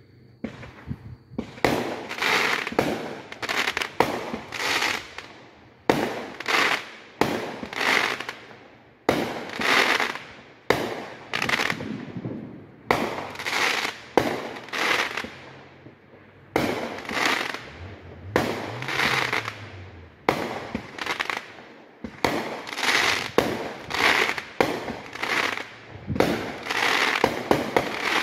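Aerial fireworks going off in a steady run, about one sharp bang a second, each followed by a crackling tail as the stars burst. The run starts about a second and a half in and keeps going to the end.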